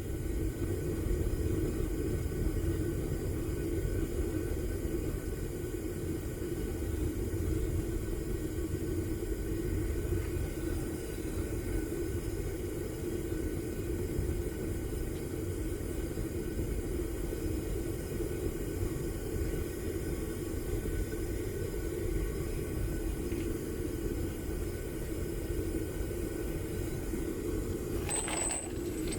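Homemade propane furnace burner running steadily, a constant low rushing rumble as it heats a crucible of brass. A brief sharp clatter with a high ring comes near the end.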